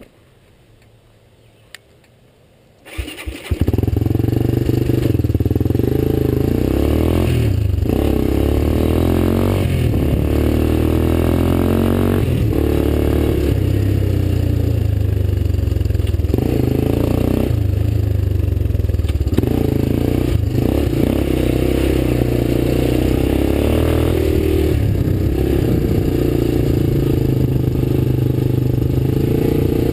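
Quad ATV engine coming in suddenly about three seconds in, after a few short clicks, then running hard as the quad is ridden, its pitch rising and falling with the throttle and dipping briefly every couple of seconds.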